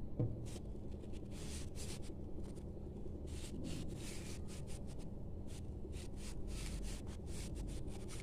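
Faint rustling and rubbing of fabric as small pieces of foam sheet are pushed into a sewn brocade pouch, over a low steady hum, with one short bump just after the start.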